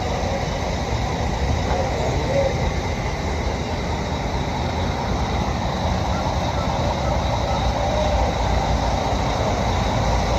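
Steady low mechanical rumble of running engines, an even drone with no distinct events.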